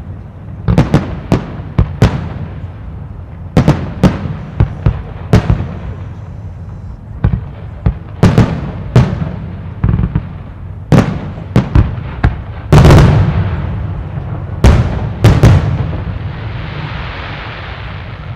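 Aerial firework shells bursting in a display: about twenty sharp bangs at uneven intervals, some in quick clusters, each trailing off in an echo. A rushing noise rises near the end.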